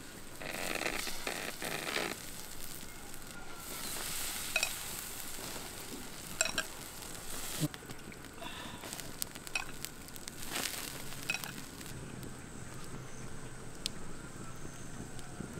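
A whole goat roasting on a bamboo spit over an open wood fire, sizzling steadily, with sharp crackles and pops every second or two.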